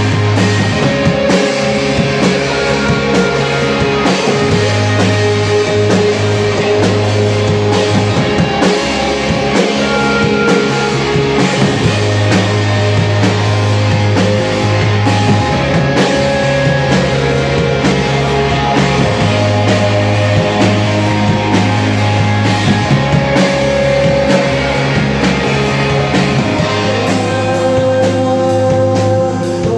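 A rock band playing live: two electric guitars, electric bass and a drum kit, loud and continuous, the bass holding long low notes that change every few seconds under steady drumming.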